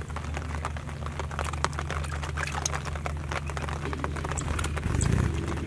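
Hands groping and splashing in a shallow, muddy water hole: irregular wet clicks, drips and squelches, with louder sloshing about five seconds in, over a steady low hum.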